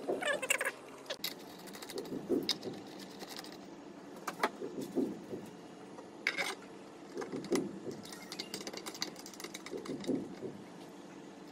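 Handling noise while fitting a ceiling fan's light kit: metal parts and a screwdriver clicking, scraping and rattling in irregular bursts, with light knocks of the glass bowl being fastened toward the end.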